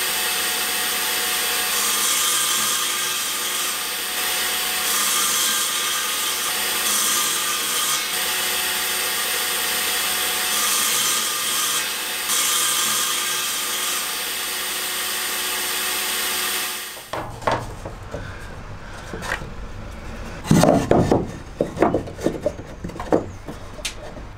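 Benchtop table saw running, its blade set shallow to cut a row of kerf cuts across a 9mm plywood strip so it will bend; the sound brightens with each pass through the wood, every couple of seconds. It stops abruptly about two-thirds of the way in, and a few knocks and rubs follow as the kerfed plywood is pressed against the van's metal frame.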